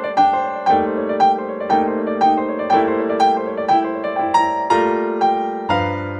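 Background piano music: a gentle melody of evenly spaced notes, about two a second, over held chords.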